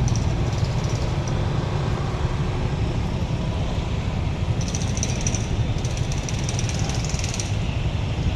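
Steady low rumble of road traffic crawling in a heavy jam, with no horns. Faint rapid high clicking runs from a little past the middle until shortly before the end.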